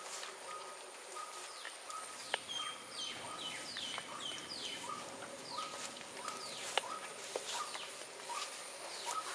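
Wet plantation ambience after rain: a bird calls a quick run of about six falling notes a few seconds in, with more falling calls later. Under it run a steady high insect hum, a short pip repeating over and over, and scattered sharp ticks.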